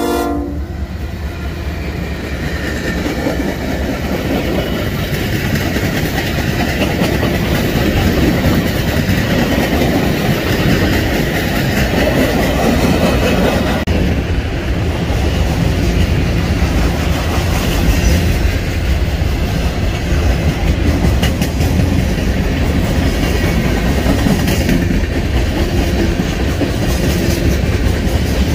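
Long freight train's cars rolling past close by: a steady rumble with the clickety-clack of steel wheels over the rail joints. A locomotive horn chord cuts off right at the start.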